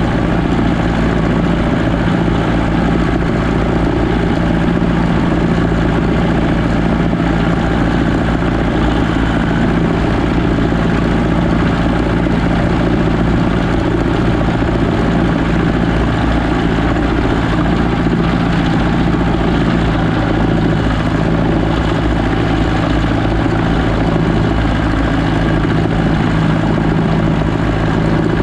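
Landini Trekker 85 crawler tractor's Perkins diesel engine running steadily while the tractor pulls a roller across a field. It has an even, unchanging drone.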